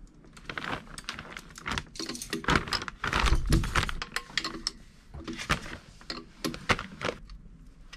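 Irregular clicks and clinks of a steel wrench on a bolt and bracket of a marine diesel engine, with a plastic bag rustling under the hands. Busiest in the middle, thinning out near the end.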